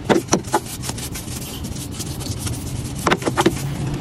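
Bristle paintbrush scrubbing water-soluble degreaser into the grime on engine-bay surfaces, short scratchy strokes coming in quick flurries at the start and again about three seconds in.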